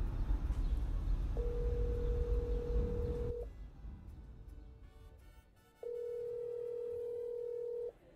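Telephone ringback tone heard by the caller while the phone rings at the other end: two long steady single-pitch rings, each about two seconds, a couple of seconds apart. A low rumble under the first ring stops about three seconds in.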